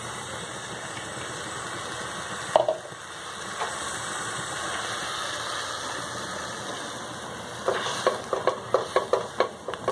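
Sugared water with litchi pulp in it bubbling steadily in a nonstick pan, with a single knock about two and a half seconds in. Near the end a spatula stirs the pulp, scraping and tapping against the pan in quick strokes.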